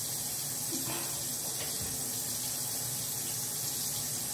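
Bathroom sink faucet left running, a steady stream of water splashing into the basin with an even hiss.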